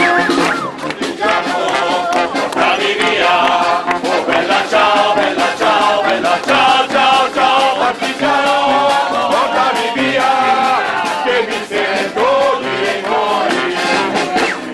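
Street band music with a group of voices singing along, and sharp percussive hits throughout.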